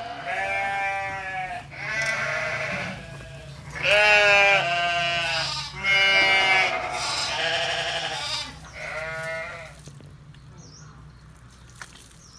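A native Central Highlands pig (heo tộc) squealing: a run of about seven loud, drawn-out cries, each close to a second long, the loudest about four seconds in. The squeals stop about ten seconds in, leaving only a few faint clicks.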